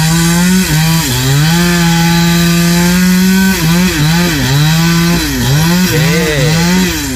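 Petrol chainsaw cutting through a coconut palm trunk. The engine is held at high revs for a couple of seconds, then its pitch repeatedly sags and picks up again as the chain is loaded in the cut. It falls away near the end.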